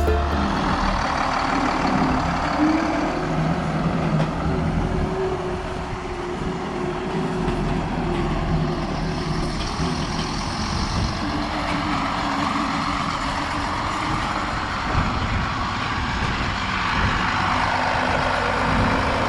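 A vehicle engine running steadily, a continuous low rumble with faint tones that drift slightly in pitch.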